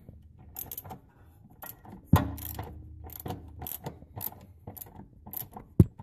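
Socket ratchet and extension loosening 10 mm nuts off the shifter-bracket studs: scattered metal clicks and clinks, with a sharp knock about two seconds in and a louder one near the end.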